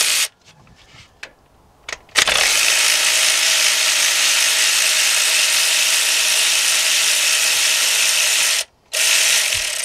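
Power ratchet with a 10 mm deep socket running steadily for about six seconds as it spins out a corroded water pump bolt. It stops briefly, then runs again for about a second near the end. A couple of faint clicks come before it starts.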